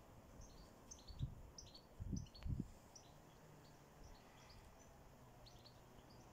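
Quiet background with small birds chirping here and there, short high calls, and a few low thumps at about one and two seconds in.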